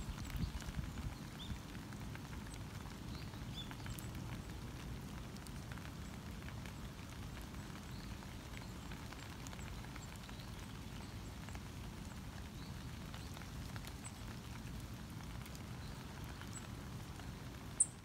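Outdoor ambience: a steady low rumble with faint, scattered short bird chirps, and one sharp click near the end.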